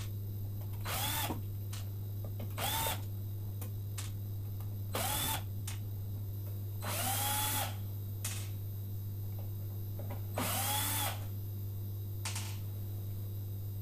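Cordless drill-driver backing out the screws of the plastic bottom cover under an electric scooter's deck: five short whirring bursts a couple of seconds apart, each rising then falling in pitch, over a steady low hum.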